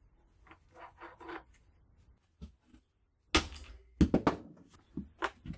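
Hammer blows driving an aluminum piece down off a scrapped power tool clamped in a vise: light handling noise, then about five sharp metallic knocks in the second half as the part is knocked loose.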